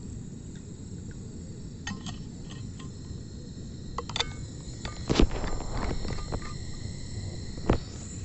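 Crickets trilling steadily over a low rumble, with a few sharp knocks, the loudest about five seconds in and another near the end.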